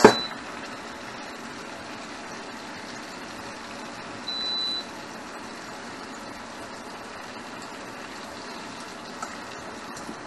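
A metal clank as the ladle knocks against the wok, then a steady even hiss from the wok of hot frying oil on the induction hob. A short high beep sounds about four seconds in.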